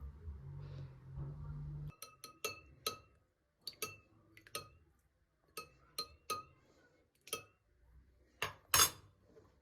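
Dishes and glassware clinking as they are handled and set down: a dozen or so sharp, ringing knocks, the loudest near the end. A low hum cuts off about two seconds in.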